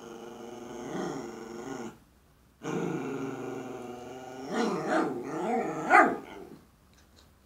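Small dog "talking": long, wavering growly whines in two stretches, the second longer and getting louder to a sharp peak near its end. It is the dog's vocal invitation to another dog to play.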